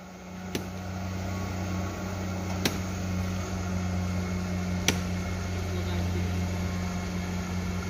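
Crawler tractor's diesel engine running steadily as a low, even drone, with three sharp clicks about two seconds apart.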